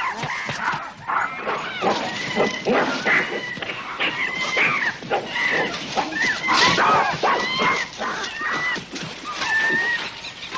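A group of chimpanzees screaming and barking in a rapid, unbroken string of high calls that bend in pitch, with sharp knocks among them. These are the agitated calls of chimps attacking a leopard.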